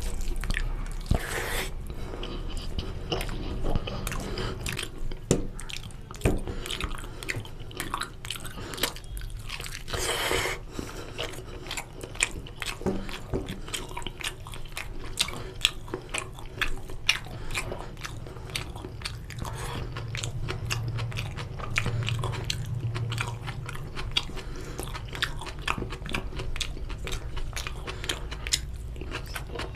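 Close-miked ASMR eating sounds: a man chewing mouthfuls of chicken curry and rice, with a dense run of quick wet smacks and clicks.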